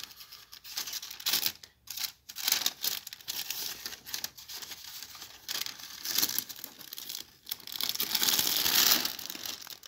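Tissue paper and plastic wrapping crinkling and rustling in uneven bursts as they are handled and folded back, loudest near the end.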